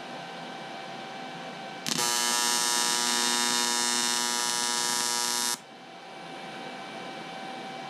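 Electric welding arc on the aluminium motorcycle crankcase, buzzing loudly for about four seconds: it strikes about two seconds in and cuts off suddenly, over a steady electrical hum from the welder.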